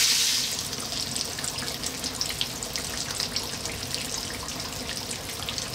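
Breaded dory fillets frying in hot oil. A loud sizzle drops away about half a second in, leaving a lighter bubbling with many small scattered crackles and pops.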